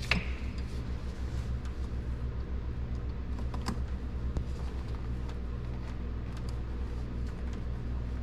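Small clicks and handling noises as a rubber coolant hose is worked onto the throttle body by hand, with a sharp click right at the start, over a steady low hum.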